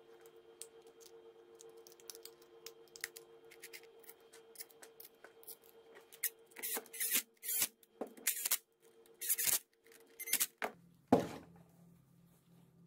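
Handling noise as a 775 DC motor is fitted into a metal motorcycle starter-motor housing: scattered light clicks and scrapes of metal parts and small screws, busier and louder in the second half, with one sharp knock about eleven seconds in.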